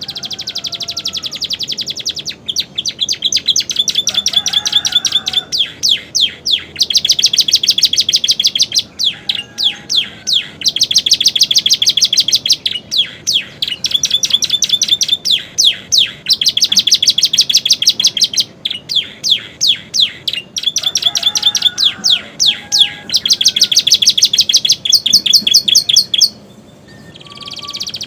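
Canary singing continuously in long, rapid trilled phrases of quickly repeated notes. The song is mixed with learned prenjak and ciblek (prinia) calls, with short pauses between phrases and a longer break near the end.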